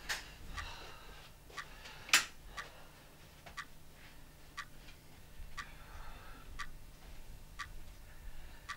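Clock ticking steadily, about one tick a second, with a single louder sharp knock about two seconds in.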